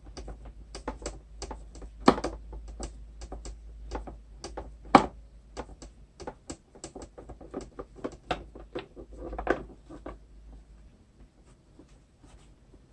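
Quick, uneven clicks and knocks of hard plastic vacuum-cleaner housing parts and tools being handled during disassembly, dying down about ten seconds in.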